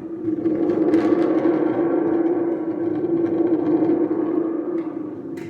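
Thunder sound effect: a loud, ringing metallic rumble that swells in about a second, holds, and dies away near the end.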